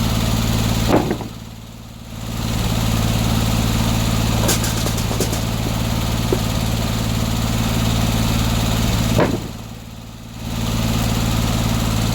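Engine of a circular sawmill running steadily, with a wider noise over it. The wider noise drops away twice for about a second and a half, about a second in and again near the end, while the engine hum carries on.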